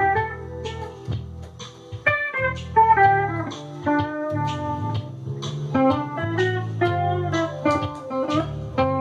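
Ibanez S770 electric guitar, played through a Marshall MG100DFX amp, playing a lead line with string bends. It is backed by sustained low chords on a Yamaha PSR-550 keyboard.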